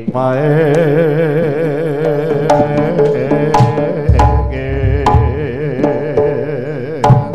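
Live jaranan gamelan music: a loud melody line held and wavering throughout, over sharp drum strokes, with a deep low boom about four seconds in.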